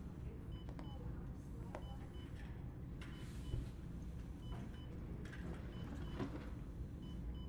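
Quiet hospital-room ambience: a steady low hum with a patient monitor's short high double beeps repeating about every second and a half, and a few faint clicks and rustles.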